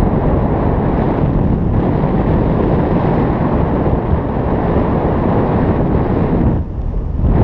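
Steady airflow rushing over the microphone of a camera on a paraglider in flight, with a brief lull about a second before the end.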